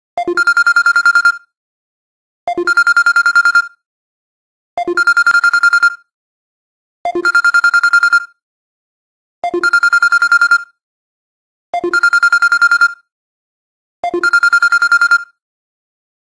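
Wake-up alarm ringing in a telephone-bell style: seven evenly spaced bursts of a fast ringing trill, each about a second long.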